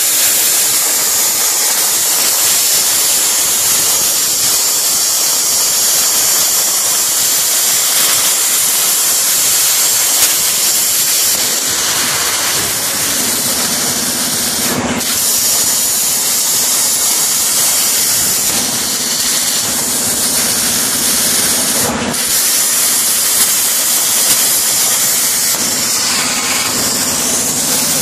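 CNC plasma cutter cutting steel plate: a loud, steady hiss of the arc and its air jet. The hiss breaks off briefly twice, about halfway and again about three quarters in. A low hum joins it in stretches through the second half.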